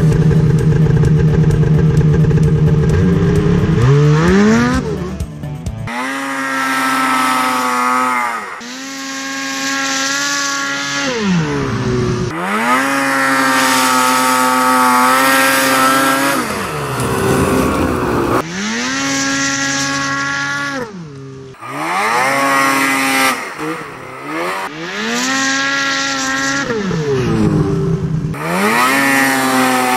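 Ski-Doo MXZ 800 snowmobile's two-stroke Rotax engine, running steadily close by, then revving up about four seconds in. After that come a series of short clips of the sled accelerating and letting off, each with the engine pitch climbing and then falling. The earlier clips are with the stock silencer and the last ones with an MBRP trail can exhaust.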